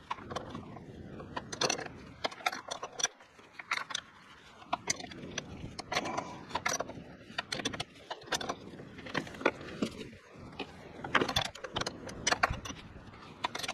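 Hand tools clicking and clinking on metal as a wrench and socket work the brake master cylinder's 14 mm mounting nuts and 13 mm brake line fittings. The clicks are irregular and come throughout.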